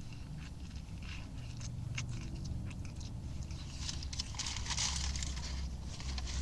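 A person biting and chewing a double-patty cheeseburger close to the microphone, with short wet clicks and smacks. Denser rustling comes in from about four seconds in, over a steady low hum.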